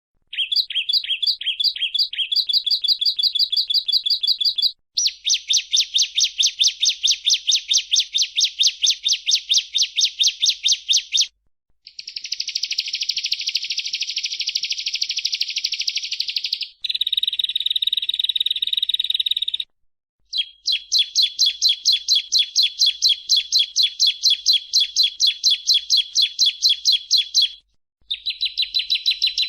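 Bar-winged prinia (ciblek) singing: long bouts of fast, evenly repeated high chirping notes, each bout lasting several seconds and broken by short pauses.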